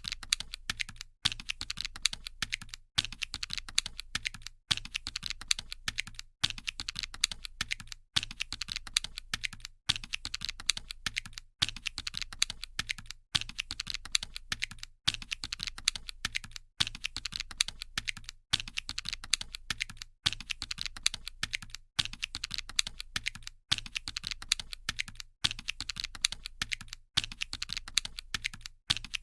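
Calculator keys being pressed in quick succession, a fast run of small plastic clicks. The run breaks off briefly and starts again about every 1.7 seconds, like a repeating loop, over a faint low hum.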